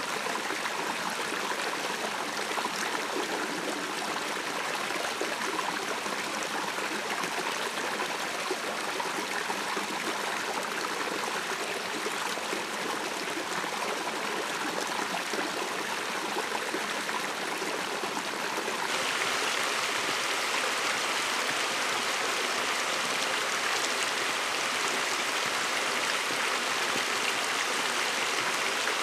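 Water from a hot-spring-fed stream running and splashing over rocks below a small waterfall, a steady rush. About two-thirds of the way through it changes to a louder, brighter rush of water.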